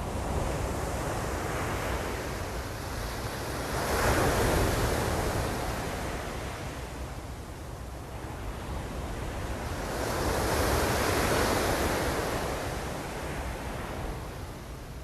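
Ocean surf washing in and out, with two waves swelling up, the first about four seconds in and the second around ten seconds in, over a low rumble of wind on the microphone.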